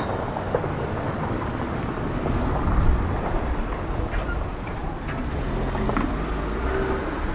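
Street ambience: a steady low rumble of road traffic, with a few faint clicks.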